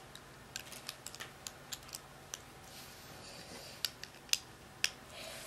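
Faint, scattered clicks and taps of plastic Lego pieces as a Lego model is handled, a dozen or so irregular ticks, with a few sharper ones in the second half.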